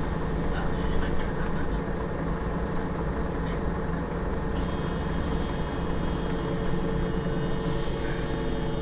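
Iveco Crossway LE city bus engine idling steadily while the bus stands at a stop. A faint high whine joins about halfway through and stops just before the end.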